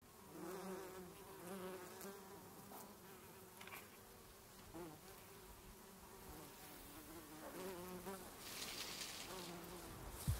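A flying insect buzzing faintly, its wavering drone coming and going in several passes as it flies about. A single sharp click sounds near the end.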